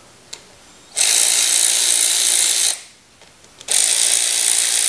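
Cordless power ratchet running a bolt in, in two runs of about two seconds each with a short pause between them.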